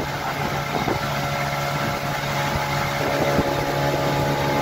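Small outboard motor running steadily at cruising speed, a constant low engine note, over the rush of water churning in the boat's wake.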